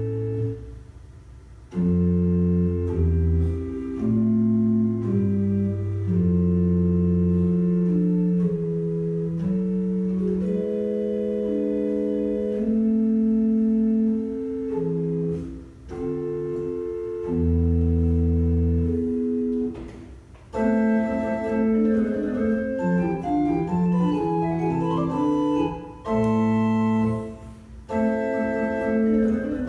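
Small pipe organ playing the basso continuo accompaniment: held chords in phrases with short breaks between them, and a quicker run of notes a little past two-thirds of the way through.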